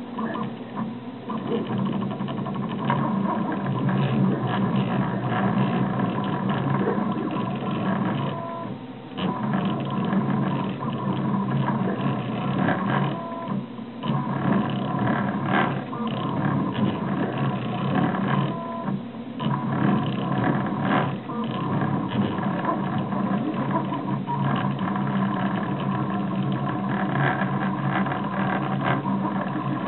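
Stepper motors of a RepRap Prusa Mendel 3D printer running as it prints, a steady mechanical whine and buzz whose tones shift as the moves change speed and direction. It briefly drops off three times.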